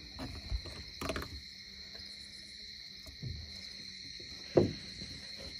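Steady high-pitched chorus of night insects such as crickets, with a couple of short thumps, the louder one about four and a half seconds in.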